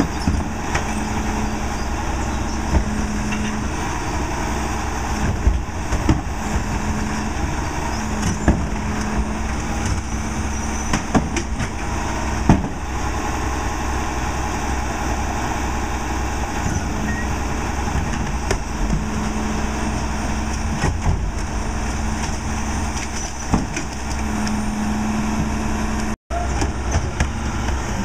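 Crane Carrier garbage truck's diesel engine running steadily while the Leach rear-loader's hydraulic cart tipper and packer work, with a steady hydraulic whine that comes and goes and scattered knocks of plastic carts against the tipper.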